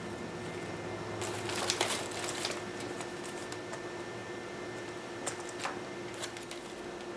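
Crinkling and rustling of a small plastic component bag being handled and opened, most active between about one and two and a half seconds in, followed by a few light clicks. A steady faint hum sits underneath.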